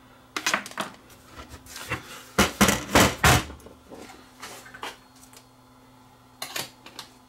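Metal case and chassis of an HD DVD player being handled on a workbench: scattered knocks and metallic clatter, loudest in a cluster of clanks about halfway through, with a last knock near the end.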